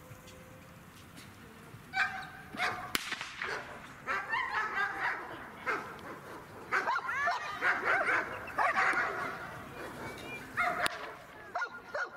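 A dog barking and yelping in a rapid series of short calls, starting about two seconds in, some with a whining rise and fall in pitch.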